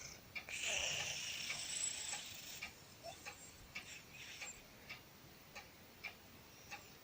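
Sleeping cat breathing with a wheezy, whistling hiss on one breath about half a second in that lasts about two seconds. Faint regular ticking runs through, about one tick every two-thirds of a second.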